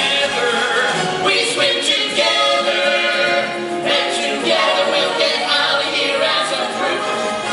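Stage musical number: a group of voices singing together over musical backing.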